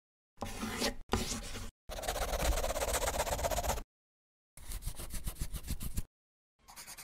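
Marker-scribbling sound effects: a pen or marker scratching across paper in a series of separate strokes, four of them with gaps of silence between, the third and longest lasting about two seconds, and a fifth starting near the end.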